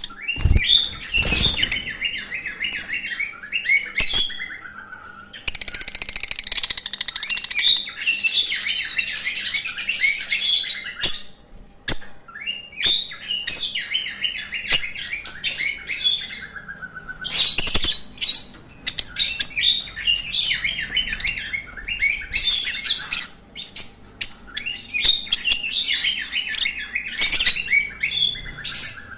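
Lovebirds chirping and chattering in quick high calls, with a busy, nearly unbroken run of chatter about a third of the way in.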